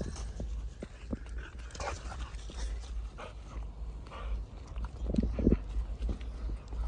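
Dogs whining, with two short whines about five seconds in, over a steady low wind rumble on the microphone and scattered crunches and clicks.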